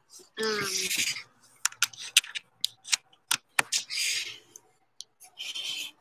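Handling noise on the phone that is recording: fingers rubbing and scraping on it, with a quick run of sharp clicks and taps as it is moved and repositioned.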